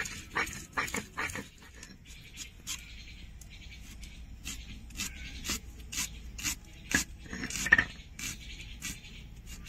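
Kitchen prep work: irregular sharp taps and scrapes, roughly two a second, from cutting vegetables or working spices, with the loudest cluster a little before the end.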